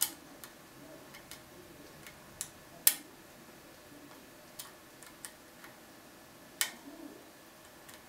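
Small metallic clicks and ticks of a lock pick working the five pin tumblers of a CES lock cylinder, coming irregularly. Three sharper clicks stand out: one at the start, one about three seconds in and one a little past six seconds.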